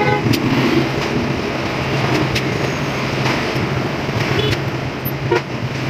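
A steady low mechanical hum over a broad noise, with a few light clicks and knocks scattered through.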